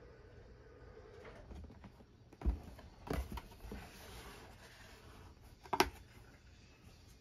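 A cardboard shoebox being handled and the tissue paper inside rustled by hand: a few sharp taps and knocks, the loudest near the end, with soft paper rustling between them.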